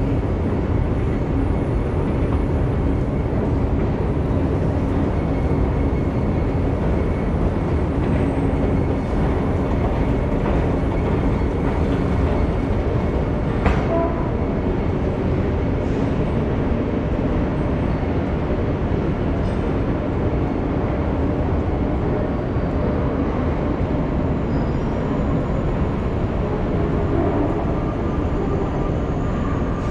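Steady low rumble of an underground metro station, with a faint steady hum under it. One sharp click about 14 seconds in.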